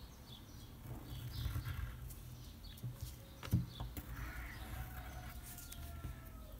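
Pencil scratching on paper in short drawing strokes, with a couple of sharp clicks about halfway through, over a faint low hum.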